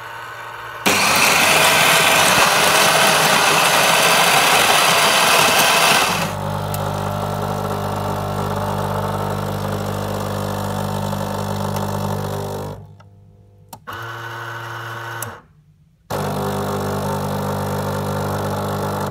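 Krups EA8010 bean-to-cup coffee machine running a test brew cycle after its brewing-unit piston seals were replaced: the built-in grinder grinds beans loudly for about five seconds, then the brewing unit's motor and the water pump hum steadily in stretches, stopping briefly twice.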